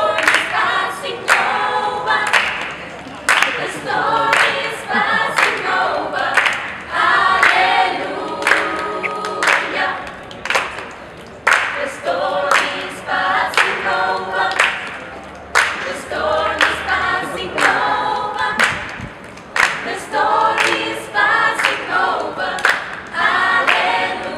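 Mixed choir of young voices singing a cappella in parts, with sharp hand claps keeping a steady beat.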